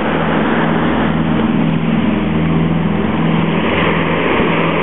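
An engine running steadily at a low, even pitch over the rushing noise of surf breaking on the beach.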